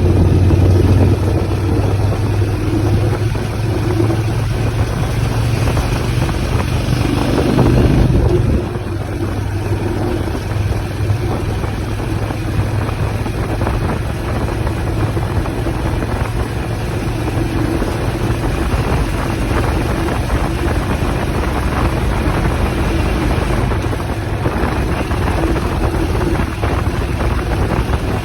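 Motorcycle on the move: the engine runs with a steady low note for the first eight seconds or so, then drops back, leaving mostly rushing wind and road noise.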